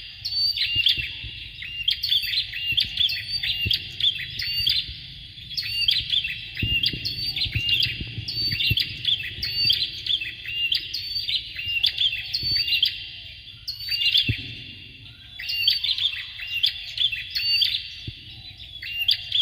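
Bar-winged prinias calling: rapid strings of sharp, high chirps in bouts of several seconds, broken by short pauses.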